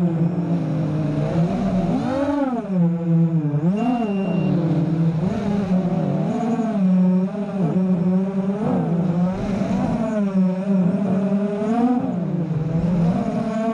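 FPV racing drone's Cobra 2206 2100KV brushless motors spinning 5-inch HQ props, heard from the onboard GoPro. Their whine rises and falls continuously in pitch as the throttle is worked through turns and dives.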